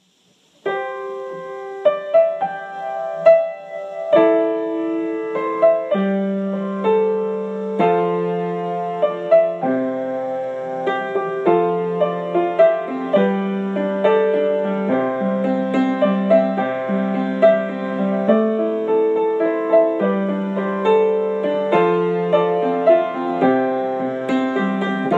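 Solo piano music, a melody played over chords, starting after a brief silence; lower bass notes join a few seconds in.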